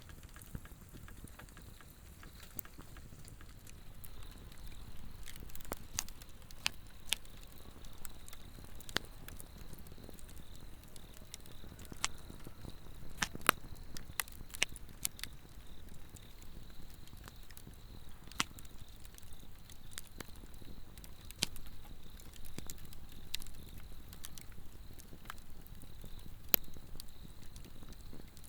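Swedish torch log fire crackling, with sharp irregular pops, the loudest around the middle, over a steady high-pitched insect chirring.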